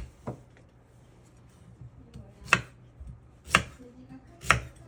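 Kitchen knife chopping on a cutting board: four separate strokes, the last three about a second apart.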